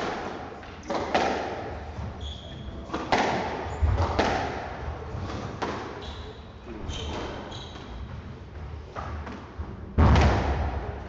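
Squash rally: the ball cracking off rackets and thudding against the walls every second or so, with short squeaks of court shoes on the wooden floor. The loudest, heaviest thud comes near the end.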